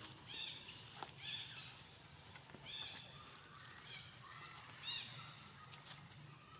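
Short, high, arched chirping calls from a small animal, repeated several times about a second apart, with a few faint sharp clicks in between.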